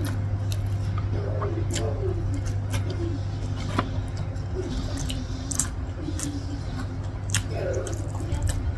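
Wet squishing and sticky little clicks of fingers kneading and scooping rice and lontong in peanut pecal sauce on a plate, eating by hand, over a steady low hum.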